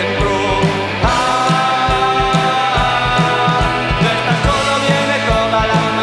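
Rock music with a steady drum beat and sustained chords, changing chord about a second in.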